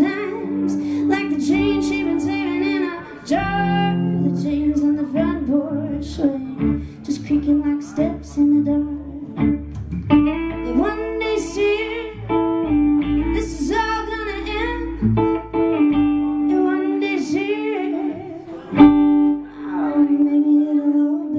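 Live guitar and upright bass playing an instrumental passage, the guitar's notes bending in pitch over low plucked bass notes.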